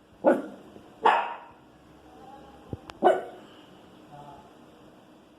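Pinscher barking three short, sharp barks, the last one after a pause, in reaction to noise from the street. A brief click comes just before the third bark.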